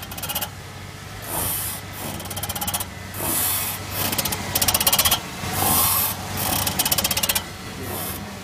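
Creaking from a Suzuki Vitara: repeated bouts of fast, ratchety creaking, alternating with short rubbing hisses.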